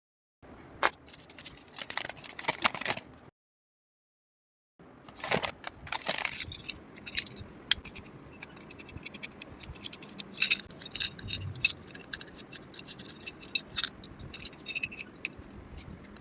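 Hand work on door lock hardware: sharp clicks, small metal rattles and scrapes, heard in three short clips that start and stop abruptly with dead silence between them.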